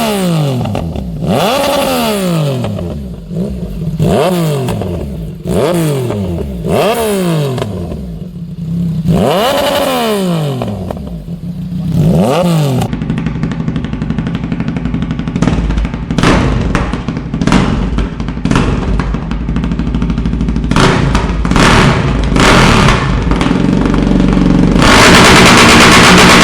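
Straight-piped motorcycle exhausts with no muffler, revving hard in short throttle blips, each rising and falling in pitch, about one every second and a half. About halfway through, another bike takes over, running with rapid sharp cracks and pops from the pipe. Near the end it gives way to a much louder, dense rattling blast.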